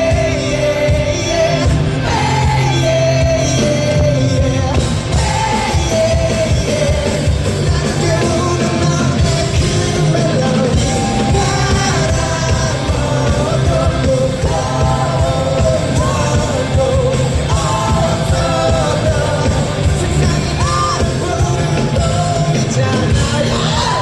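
Male vocalist singing live with a loud band backing of bass and drums, in a large hall.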